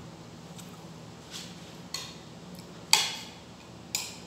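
A metal spoon clinking and scraping against a plate of rice as food is scooped up: a handful of sharp clinks, the loudest about three seconds in.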